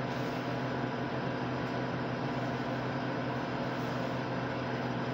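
Steady electrical machine hum with a constant low drone, like an appliance running.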